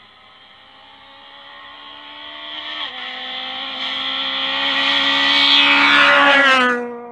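Citroën C2 rally car coming up the stage under full throttle, its engine getting steadily louder. It changes up once about three seconds in, then revs higher as it closes in. Near the end it goes past with a sharp drop in pitch and the sound falls away.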